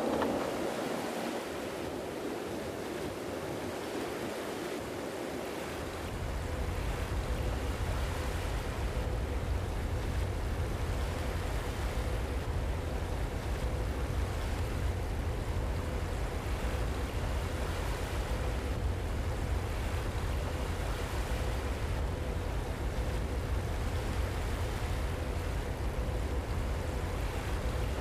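Steady outdoor noise of wind and sea surf. About six seconds in, a low wind rumble on the microphone sets in, with a faint steady hum underneath.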